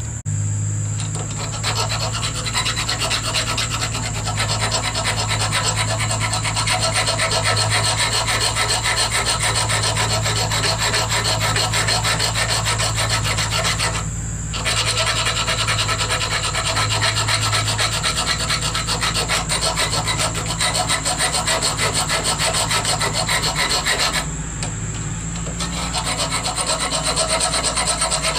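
Round rat-tail file rasping back and forth in steady strokes, cutting a groove into a soft workpiece held in a vise. The filing pauses briefly about halfway and again near the end.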